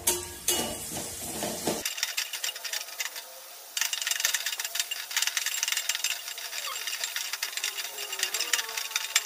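Spatula scraping and knocking against a stainless-steel pan while tomatoes and green chillies are stirred. From about four seconds in, a steady crackling sizzle as they fry in oil, cooking down until soft.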